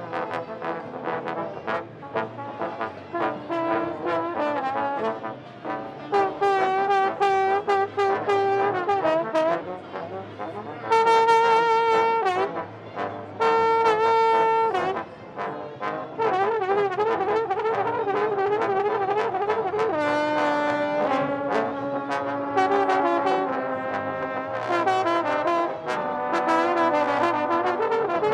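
B.A.C. trombone played solo: a melodic line of quick runs and wavering notes, with two loud held notes near the middle.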